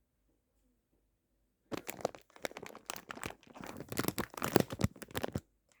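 Plastic instant-ramen packet crinkling and tearing as it is handled: a dense, irregular run of crackles starting a little under two seconds in and stopping shortly before the end.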